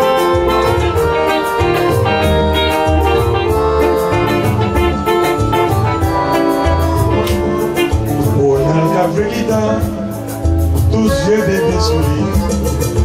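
Live music: a semi-hollow electric guitar played over a backing track with a steady drum beat, bass and keyboard chords, in a Latin-Caribbean groove.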